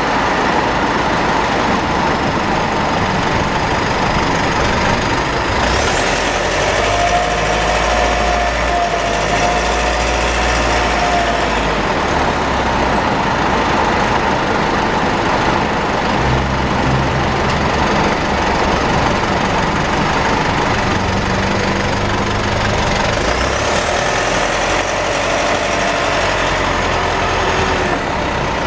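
Steady high-pitched whine heard inside the cabin of a Mitsubishi with a 4N15 diesel and V6AWH gearbox while it is being driven, over road and engine noise; twice a second, lower tone swells and falls away. The owner traces the whine to the drivetrain, having found the rear differential overfilled, the front differential oil burnt and the automatic transmission fluid about a litre short.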